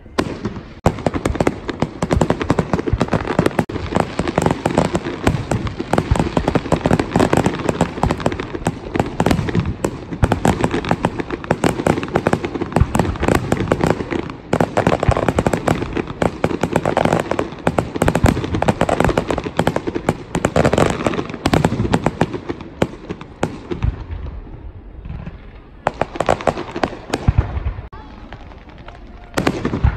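Fireworks display: a dense barrage of bangs and crackling, many reports a second, that thins out after about twenty-three seconds, then a last loud burst near the end.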